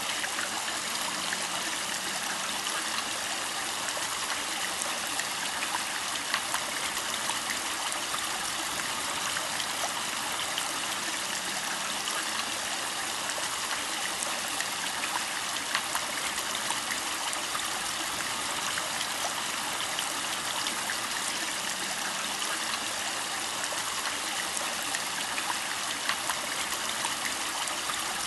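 Backyard pond water running and trickling steadily, with faint scattered drips and splashes.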